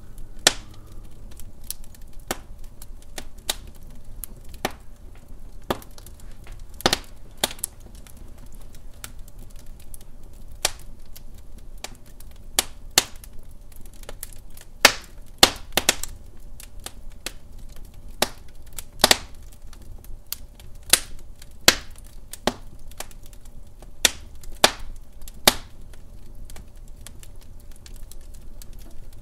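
Wood fire crackling in a fireplace: irregular sharp pops and snaps, a few louder ones, over a low steady rumble of the flames.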